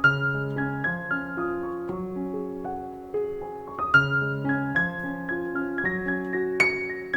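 Background music: a soft piano melody over sustained low notes.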